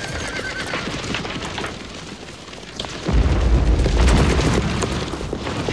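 Battle-scene explosions: continuous rumbling blast noise with scattered sharp cracks, and a heavy explosion with a deep rumble about three seconds in.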